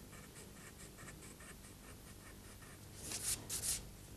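A rubber scrubbing ink off the surface of an inked bromoil print, lifting ink to brighten the highlights. It makes faint short scratchy strokes, about four or five a second, then two louder brisk rubs near the end.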